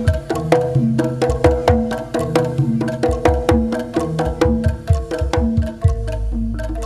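Jaranan-style Javanese music with drums, played loud through a large sound system, with a quick, even beat of sharp percussion strikes over repeating pitched notes and punchy bass. Near the end a long, deep bass note is held.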